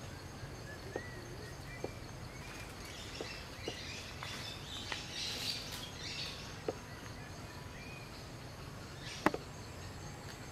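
Outdoor ambience with a steady low hum, faint bird chirps and a patch of high chirping in the middle. Scattered short clicks run through it, the sharpest about nine seconds in.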